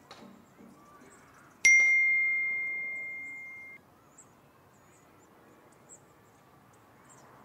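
A single ding from a phone's notification tone, about a second and a half in; it rings on, fading, for about two seconds and then cuts off.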